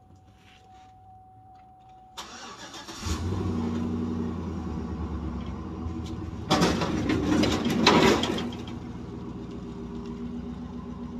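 Pickup truck engine cranked over and catching about three seconds in, settling into a steady idle, then revved hard for about two seconds as the truck pulls away before settling back to a steady run.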